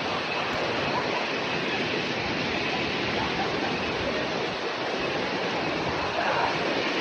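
Sekumpul Waterfall's falling water: a steady, unbroken rush.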